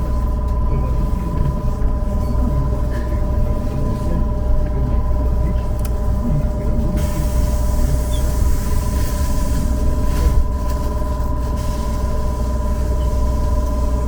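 Trolleybus on the move, heard from inside: a steady rumble with a steady electric whine from its drive equipment. A hiss joins for a few seconds in the middle.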